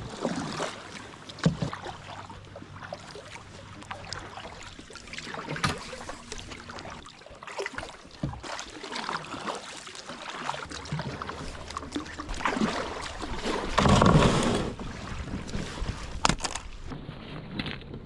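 Kayak paddling through water: paddle strokes and splashes with small clicks and knocks, and one louder burst of noise about fourteen seconds in.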